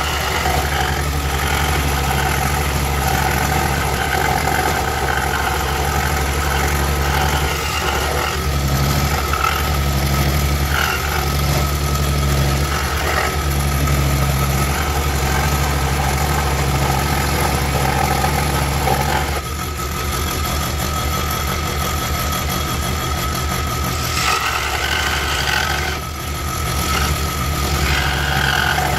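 Woodstar SD 16 scroll saw running steadily, its blade reciprocating as it cuts along a pattern in a pine board. The sound dips briefly about two-thirds of the way through and again near the end.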